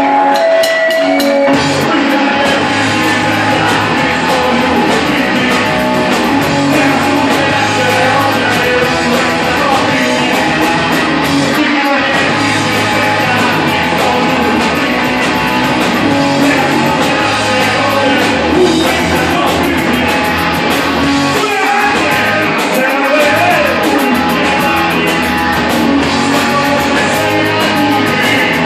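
Live punk rock band playing loud and steady: electric guitars and bass over a drum kit with rapid, even cymbal strokes.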